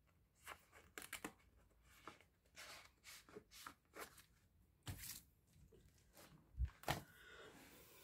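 Plastic card sleeves and binder pages being handled: scattered faint rustles and crinkles, with a few sharper knocks about five and seven seconds in.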